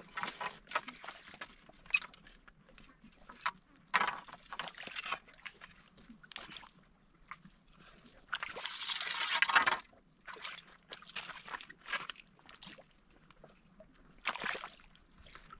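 Water sloshing and splashing in irregular bursts, with one longer, louder splash from about 8 to 10 seconds in.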